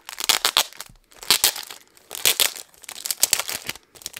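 Clear plastic cellophane wrapping on a pair of paperback planner books crinkling in the hands as it is pulled open, in about four loud bursts with short pauses between.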